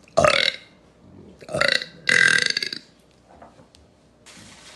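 A woman burping three times on purpose: a short burp right at the start, then two more about a second and a half in, the last one the longest.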